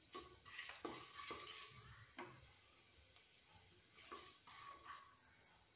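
Faint: a wooden spatula stirring fenugreek and cumin seeds in hot oil in a kadhai, with about six soft knocks against the pan over a low sizzle.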